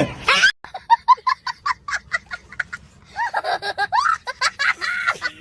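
Children giggling and laughing in quick, short bursts, breaking into longer laughs from about three seconds in.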